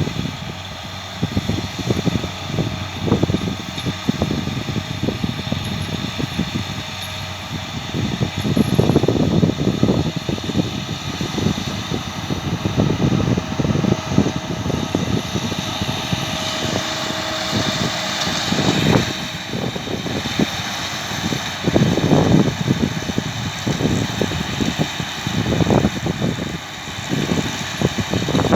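New Holland T6 tractor running steadily while it pulls a New Holland round baler baling hay, with wind buffeting the microphone in uneven low gusts.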